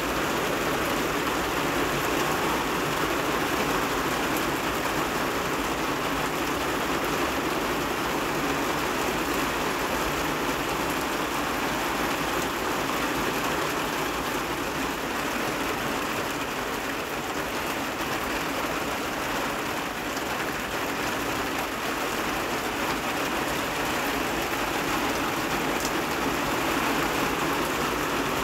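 Steady rain falling on a roof and surroundings: an even, unbroken hiss that holds the same level throughout.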